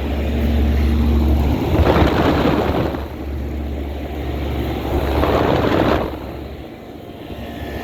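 Outdoor air conditioner condensing unit running, with a steady low compressor hum and the rush of its fan air, which swells twice. The low hum falls away near the end. It is a unit that doesn't sound good.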